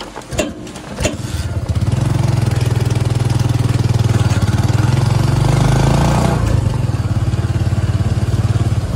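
Motorcycle engine of a tricycle (motorcycle with sidecar) coming up about a second in after a couple of knocks, then running loudly and revving as it pulls away, easing off about six seconds in.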